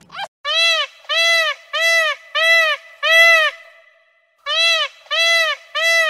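Indian peafowl (peacock) giving a series of loud, short honking calls, each rising and falling in pitch. Five come in quick succession, then a short pause, then three more.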